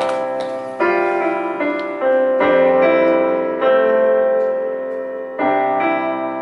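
Piano intro: full chords struck every second or two, each held and ringing out as it slowly fades.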